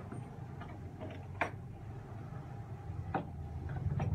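A few sharp plastic clicks as a DeWalt hard plastic tool case is unlatched and opened, over a steady low hum.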